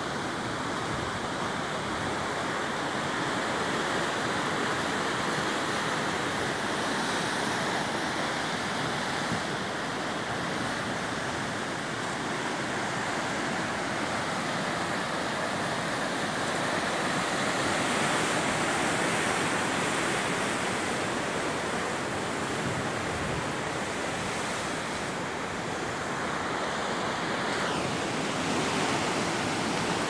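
Sea surf breaking on rocks below a cliff: a steady rushing wash that rises and falls slowly as the waves come in.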